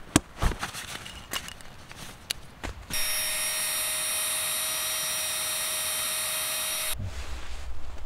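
Small handheld electric air pump running steadily for about four seconds, with an abrupt start and stop, while it inflates a sleeping pad through its valve. Before it, there are rustling and clicks as the pads are handled.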